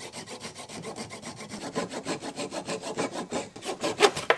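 A flush-cut hand saw cutting wood in quick, even strokes, several a second, with a few harder strokes near the end. It is trimming a glued joint of a wooden mallet flush.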